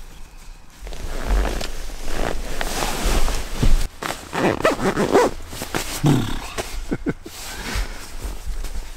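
Sleeping bag and clothing rustling and scraping as a person wriggles into the bag, with a few short grunts of effort partway through.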